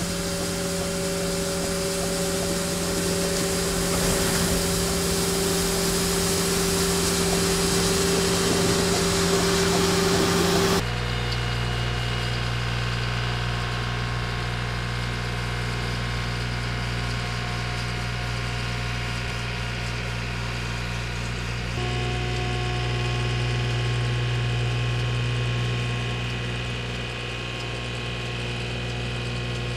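Skid-steer and compact loader engines running steadily while a hydraulic hopper broom sweeps debris. For the first third a steady hiss lies over the engine hum, then the sound changes abruptly to a lower, steadier engine hum, with another abrupt change about two-thirds in.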